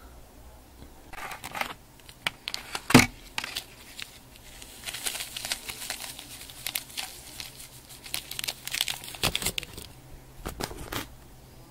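Plastic crinkling and clicking as the thin plastic candy-kit tray is handled, with one sharp click about three seconds in and a long run of dense crackles in the second half.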